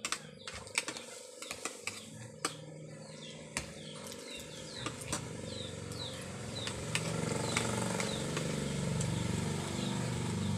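Spoons and forks clinking on plates during a meal, with a bird giving repeated short falling chirps. From about halfway, a low engine rumble grows louder.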